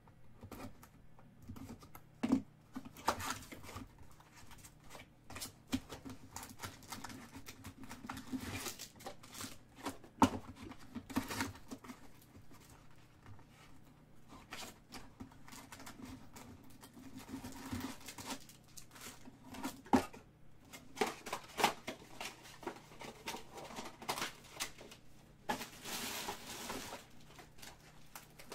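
A cardboard trading-card box being opened and emptied by hand: the flap torn open, foil card packs rustling and crinkling as they are pulled out and stacked, with scattered sharp taps as they are set down on a table.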